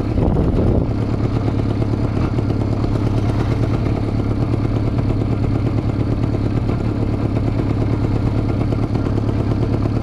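Carbureted four-cylinder 400 cc motorcycle engine pulling at low revs in sixth gear, struggling a bit, its pitch holding steady.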